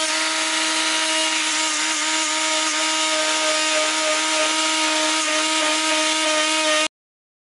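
Makita cordless die grinder spinning a Kutzall ball nose rasp at steady speed, a high whine over the rasping of the bit cutting into wood as it follows a marked curve. It cuts off suddenly near the end.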